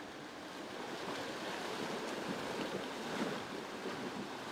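Water splashing and rushing around the wheels of a 2013 Land Rover Freelander 2 as it drives through a shallow stream, a little louder from about a second in.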